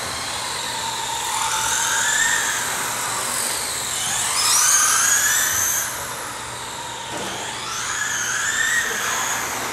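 Several radio-controlled cars racing, their electric motors whining in overlapping pitch sweeps that rise and fall again and again as the cars speed up and slow down.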